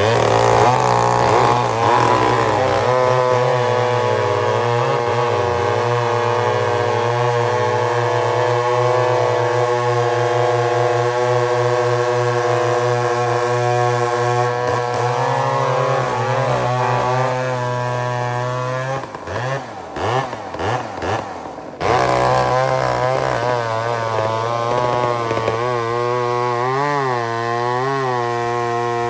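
McCulloch 797 chainsaw cutting through a large log at high revs. The engine note eases off and flutters for a few seconds about two-thirds of the way in, then comes back up to speed and wavers as it bogs under load in the cut.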